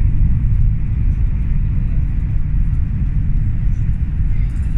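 Steady low rumble of a CR400AF Fuxing high-speed train's passenger cabin at a cruising speed of about 348 km/h.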